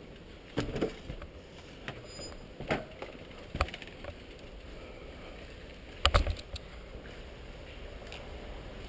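Mountain bike descending a dirt trail: a steady rolling noise broken by a few sharp clattering knocks as the bike hits bumps, the loudest cluster about six seconds in.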